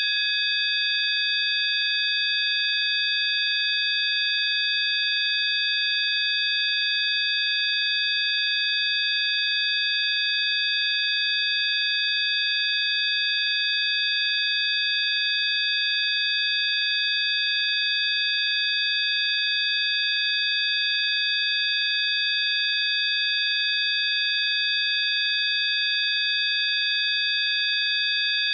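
Electronic sine tones of a 'healing frequency' track: several high-pitched pure tones sound together, held perfectly steady without any change, over a faint hiss.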